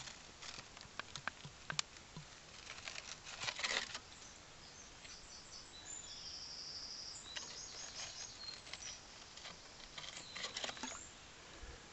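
Stream water gurgling and splashing into a plastic bottle held under the surface, with bursts of crackly clicks as it fills. A bird sings a short high-pitched phrase in the middle.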